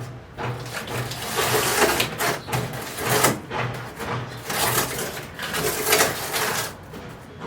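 Plastic food packaging rustling and crackling as wrapped packs are handled and placed in the freezer, in uneven bursts that are loudest in the middle stretch.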